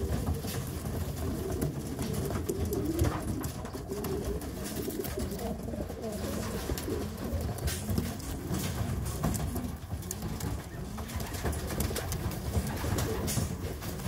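A flock of racing homer pigeons cooing, several birds overlapping in repeated low, wavering coos, with scattered light clicks and taps among them.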